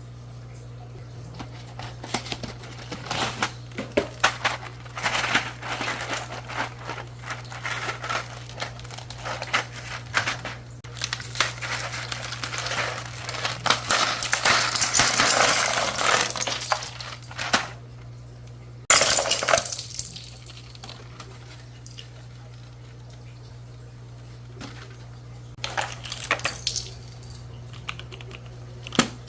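Hard plastic clicking and clattering from a keyboard and its keycaps being handled, densest through the first half, with a sharp loud clatter about 19 seconds in and a few more clicks near the end.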